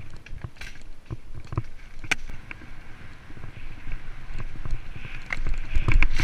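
Mountain bike riding fast over a dirt singletrack: tyres on the dirt and the bike rattling, with scattered knocks over bumps that get louder and more frequent near the end.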